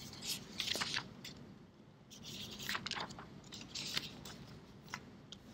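Faint, irregular scraping and rustling noises in short bursts, with no speech.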